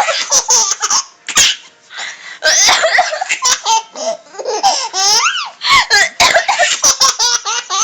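Baby laughing hard in repeated high-pitched fits, set off by coughing, with short sharp coughs between the bursts of laughter.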